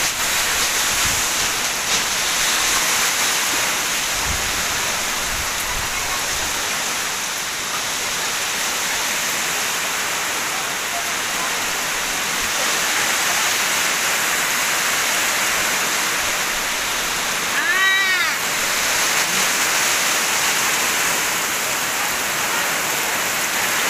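Heavy tropical downpour driven by strong gusting wind: a loud, steady rush of rain. About three-quarters of the way through, a brief rising-and-falling cry stands out over it.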